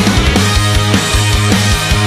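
Loud rock music with a fast, steady drum beat.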